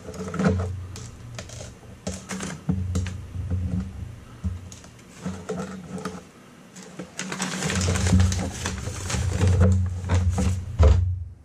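Quick irregular clicks, small knocks and rustling from hands working on wiring and parts inside a sheet-metal toaster oven, with bursts of low rumbling handling noise close to the microphone.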